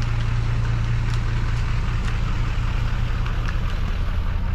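Small excavator engine running steadily with a low, even drone, with a few faint clicks on top.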